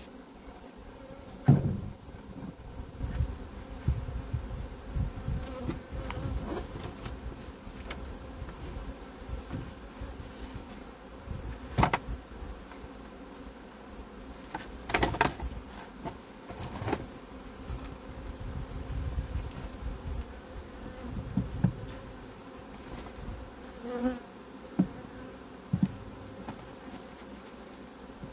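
Honeybees buzzing steadily around an open hive, with several sharp knocks and clicks as wooden hive frames and boxes are handled.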